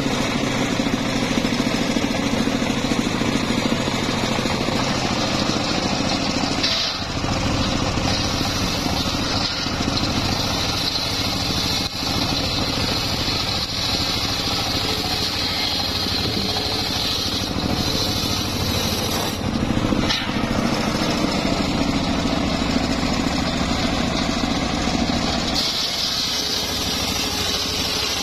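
Homemade circular saw bench running steadily while its large blade rips a mahogany plank lengthwise. A high cutting whine comes and goes as the board is fed through, with short breaks about seven seconds in and again near twenty seconds.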